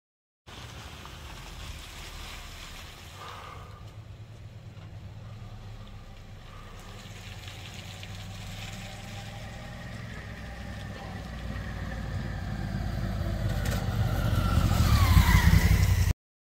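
A road vehicle approaching, its low engine and tyre rumble growing steadily louder, with a falling whine in the last second or two as it draws close.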